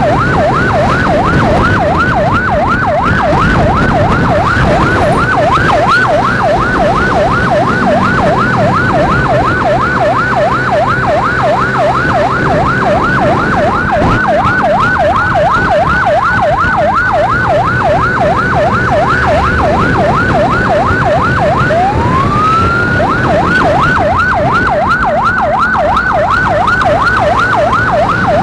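Electronic emergency siren on a fast yelp, sweeping rapidly up and down without a break. Near the end it drops and gives one slower rising wail, then returns to the yelp. A motorcycle engine runs underneath.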